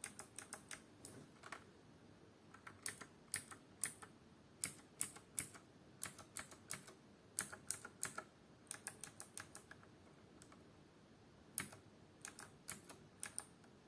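Clicky mechanical keyboard switches pressed in quick runs of sharp clicks with short pauses between runs; the first run is Kailh BOX White switches.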